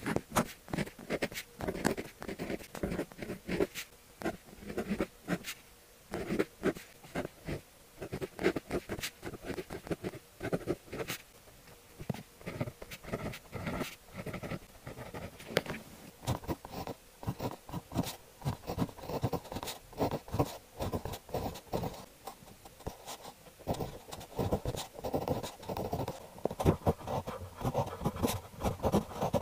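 Fineliner pen nibs writing Chinese characters on paper: a quick, irregular run of short scratchy strokes, somewhat louder near the end.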